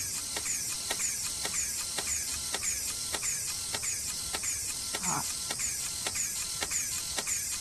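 Robotic spider legs walking as a film sound effect: evenly spaced mechanical clicks, about three a second, each paired with a short, high, falling servo whir. A brief gliding sound comes about five seconds in.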